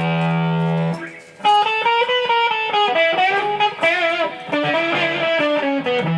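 Overdriven electric guitar: a held chord that stops about a second in, then a single-note lead lick with string bends.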